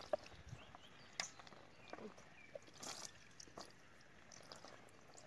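Faint, scattered wet splashes and squelches as water is poured from a plastic mug over a whole raw chicken and the bird is rinsed and turned by hand on banana leaves.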